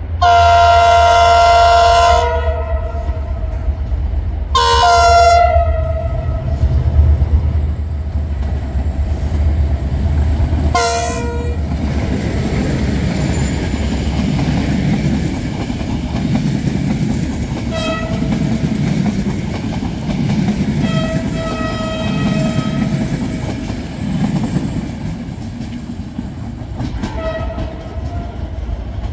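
Train horn on a locomotive, sounding a loud chord of several tones for about two seconds, a second blast a few seconds later and a brief third toot, over a deep steady engine hum. The train then rolls past with a rumble of wheels on rail joints, with a few fainter short horn toots.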